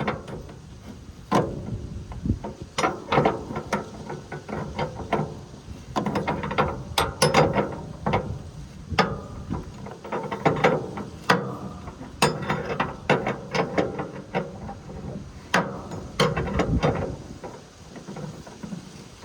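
Ratchet wrench clicking in short runs with metal knocks in between, as a lock nut is worked loose on a combine's adjuster.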